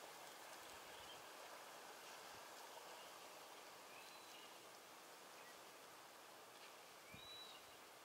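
Near silence: faint outdoor ambience with a steady hiss, and a few short, high bird chirps about four seconds in and again near the end.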